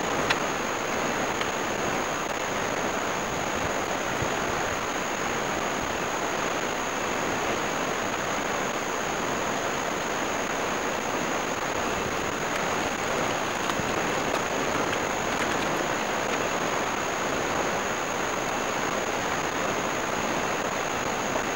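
Ocean surf breaking on the beach as a steady, even wash, with a faint high-pitched whine running steadily through it.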